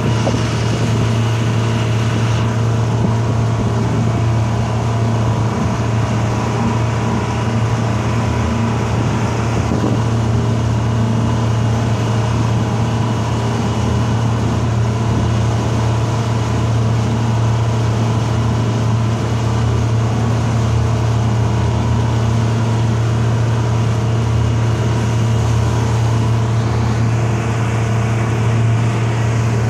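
Tour boat's engine running at a steady speed, an even loud drone with a strong low hum, heard from on board while the boat cruises.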